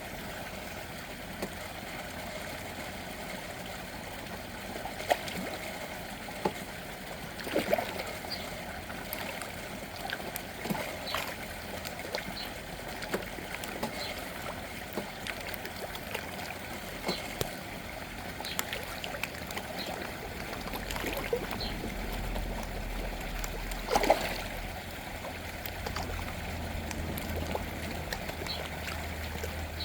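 Small waterfall splashing steadily into water, with a few sharper splashes and plops standing out now and then, the loudest about 24 seconds in.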